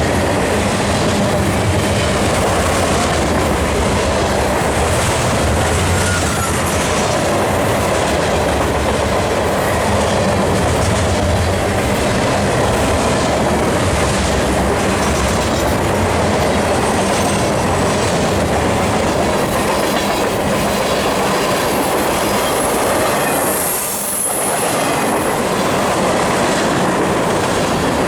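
Cars of a long freight train rolling past, with a steady loud rumble and clatter of steel wheels on rail. A brief high wheel squeal comes in near the end.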